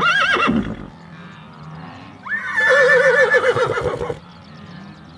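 Zebra calling with a horse-like whinny: a short call right at the start, then a longer call of about two seconds with a quavering pitch.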